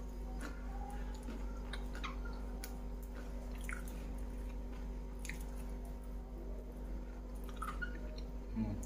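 Chewing a mouthful of crispy battered fried catfish: soft, scattered little crunches and mouth clicks over a faint steady hum.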